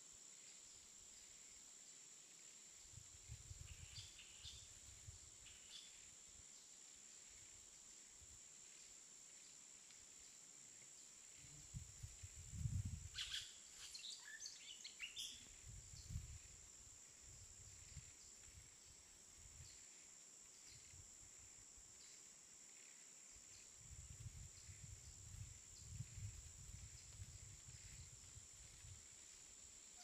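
Light wind gusting through the forest in slow waves, loudest about twelve seconds in, over a steady faint high-pitched hiss. A few faint bird chirps come in with the gusts, about four and thirteen seconds in.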